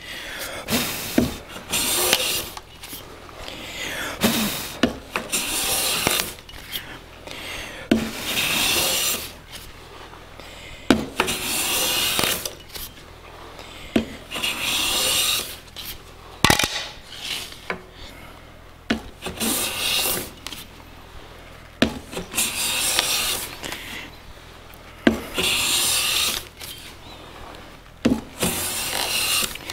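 Metal bench hand plane taking shavings off a thin wooden veneer strip, in repeated strokes about every two seconds, each a short rasping swish. Small knocks come between strokes as the plane is lifted and set back down.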